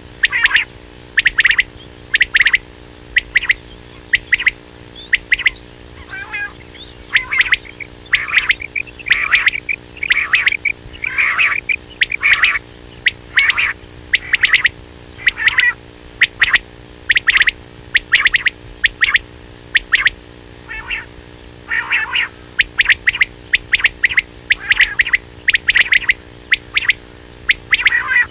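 Quail calls repeated over and over: short clusters of sharp, high notes about once a second, with a few brief pauses, played as a lure call for quail. A faint steady hum lies beneath.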